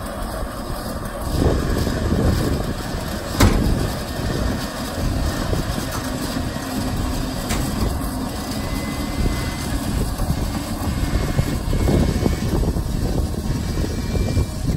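A 3,500 lb Superwinch electric winch, run off a 12-volt battery, running steadily under load as it winds its cable through a snatch block to haul up a heavy steel shipping-container side door. There is one sharp clank about three and a half seconds in.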